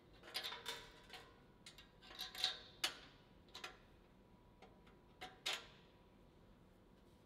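Chromoly steel frame tubes and brackets clinking and scraping against each other and the jig as a part is fitted by hand: a run of sharp metallic clicks and knocks, some ringing briefly, with two more knocks about five seconds in.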